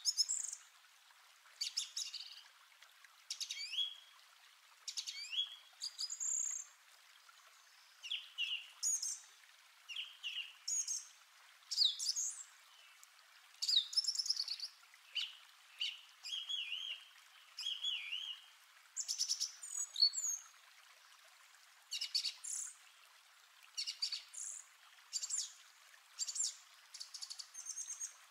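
Small birds chirping and singing in short phrases of quick rising and falling notes, a new phrase about every second.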